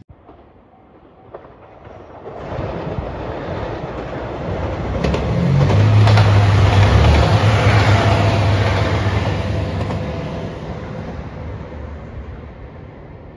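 A JR Shikoku 2700 series diesel multiple unit passes. Its rumble builds over a few seconds and peaks with a steady low diesel engine hum and wheel clatter as the cars go by, then fades away.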